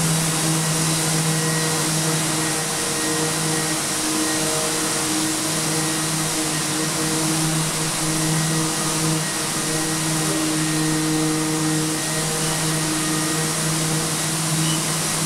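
Electric orbital sander with its hose-connected dust extractor running steadily as it sands compressed charcoal off a wall. It makes an even motor hum with a constant pitch over a hiss of air.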